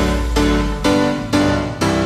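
Background music carried by keyboard chords, a new chord struck about twice a second.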